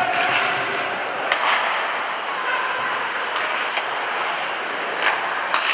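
Ice hockey play in a rink: a steady scraping hiss of skates on ice, with sharp clacks of sticks and puck about a second in and twice near the end, and players' shouts.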